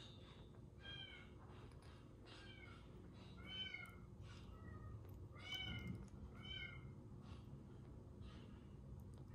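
Baby kitten mewing: short, high, arched mews about once a second, growing fainter in the last two seconds, while it is offered a milk bottle.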